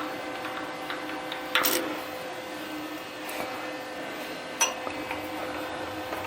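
Metal clinks and knocks from tools and parts being handled at a milling machine setup, with a louder clatter about one and a half seconds in and a sharp click just before five seconds, over a steady hum.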